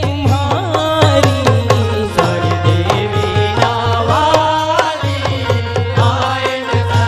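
Devotional bhajan music from a live bhajan group: a melody with sliding ornaments over dholak and mandar drum strokes.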